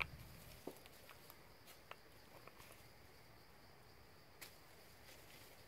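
Near-silent forest ambience: a faint, steady high insect drone with scattered small clicks and ticks, the sharpest one right at the beginning.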